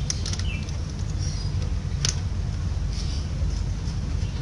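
Steady low background rumble, with a few short high chirps and a couple of light clicks.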